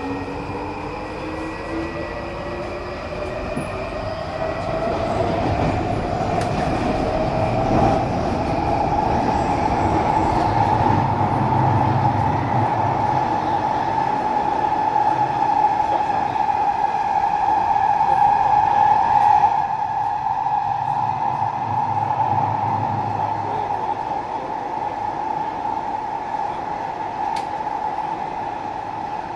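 Inside a Singapore MRT train pulling away: the traction motors' whine rises in pitch over the first ten seconds or so, then holds as one steady tone over the rumble of the wheels on the track. The level drops a little about two-thirds of the way through.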